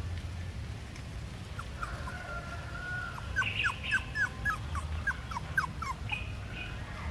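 Puppy whimpering: a run of short, high whines, each falling in pitch, about three a second, starting about two seconds in and stopping near the end.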